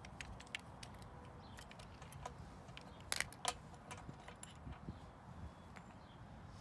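Faint, scattered clicks and ticks of small metal screws being turned out by hand and handled on a metal umbrella pole's crank cover plate, with two sharper clicks a little after three seconds in.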